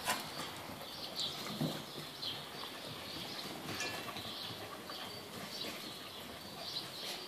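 Light, scattered patter of border collie puppies' paws and claws on terracotta floor tiles as they run about, with a few faint bird chirps about four to five seconds in.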